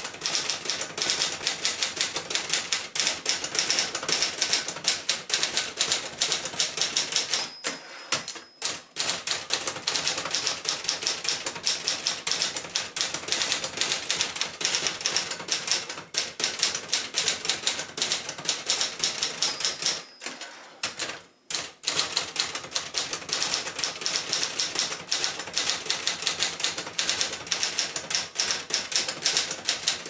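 1976 Adler J5 manual portable typewriter being typed on steadily: a fast, uneven clatter of keys and typebars striking the platen. Twice a short ringing tone, the margin bell near the end of a line, comes just before the typing breaks off briefly.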